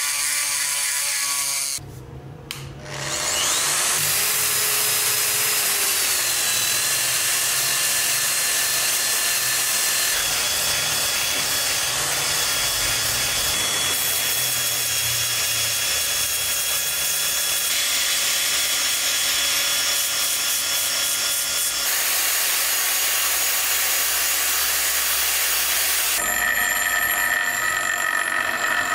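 Power tools grinding and polishing the steel head of a rusty hammer to strip the rust: a handheld rotary tool's grinding stone against the steel, a spinning polishing pad, and a bench grinder near the end. The motor whine shifts abruptly every few seconds, with a brief dip about two seconds in.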